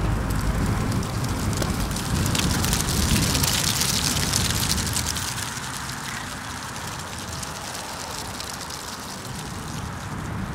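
Outdoor wind rumbling on the camera's microphone. A crackly rushing hiss swells a few seconds in, then the sound settles into a quieter steady hiss for the second half.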